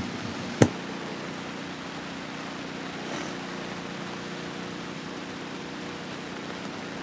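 Steady outdoor background rush with a faint low hum underneath, broken once by a single sharp knock a little over half a second in.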